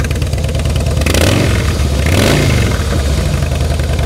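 2009 Harley-Davidson Softail Deluxe's 96-cubic-inch V-twin idling through Vance & Hines exhaust pipes, revved twice with quick throttle blips about a second apart.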